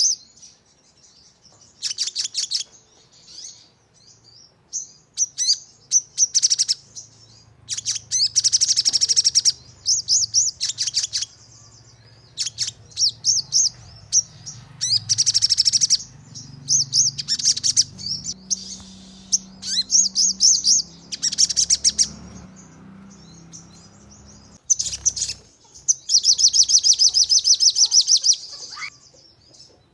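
Sogon bird calling in rapid-fire trills of sharp, high, closely repeated chirps. They come in bursts of about one to two seconds with short pauses between, the fast 'nembak' delivery used as lure song for other sogon birds.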